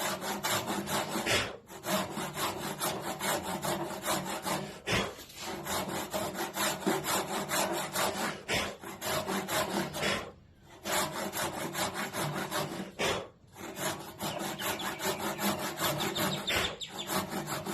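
Panel saw cutting through timber by hand: steady back-and-forth rasping strokes, cutting down to a marked line. The sawing stops briefly several times, the longest pauses about ten and thirteen seconds in.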